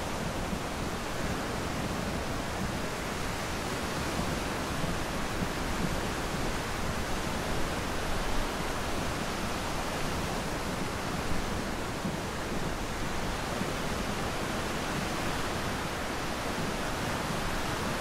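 Small ocean waves breaking and washing up the sand, a steady surf hiss, with a low rumble of wind on the microphone.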